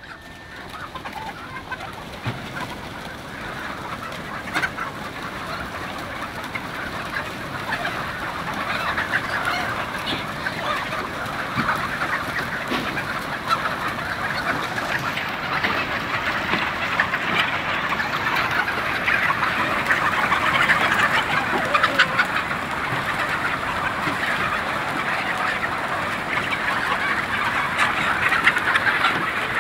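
A large flock of chickens clucking and calling all at once, a dense crowd of overlapping calls. It grows louder over the first several seconds as more birds join, then stays loud.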